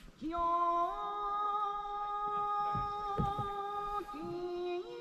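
A voice singing a slow Japanese folk song in long, steady held notes that slide up into each new pitch, with a few low thumps near the middle.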